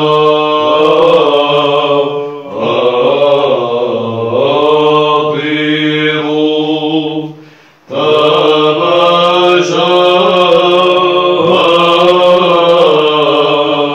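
Male monks chanting a Byzantine hymn in Arabic: a slow, ornamented melody sung over a steady low held drone note. The singing drops away briefly just before the eight-second mark, a breath between phrases, then carries on.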